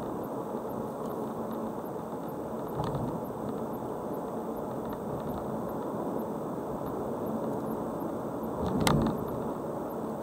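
Car driving, with steady road and engine noise. A small knock comes about three seconds in and a louder thump near the end.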